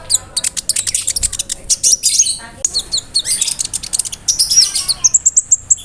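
Ruby-cheeked sunbird (konin) singing a fast, varied song of high chirps and clicking notes, ending in a quick run of repeated high notes.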